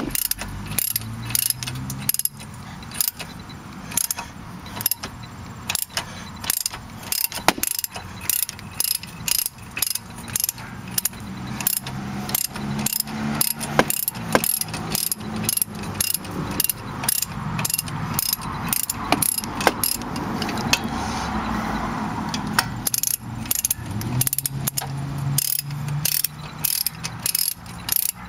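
Ratchet wrench driving a triple-square bit socket, its pawl clicking in a steady run of sharp clicks about two a second as it unscrews a rear brake caliper bolt.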